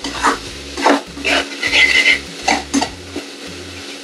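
A metal spoon stirring and scraping a thick tomato-onion masala around a metal kadai in irregular strokes, over a light sizzle of frying. One stroke about two seconds in scrapes with a short high squeal. The masala is being fried until the oil separates.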